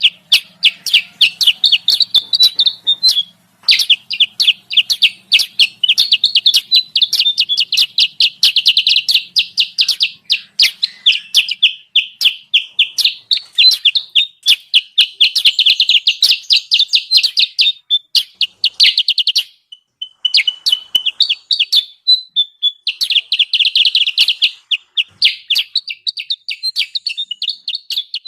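Kutilang sutra bird lure recording: rapid, noisy chattering chirps, many a second, with brief breaks about three seconds in and again near twenty seconds, where a thin whistle sounds. It is a call track meant to draw wild kutilang sutra down to a trap.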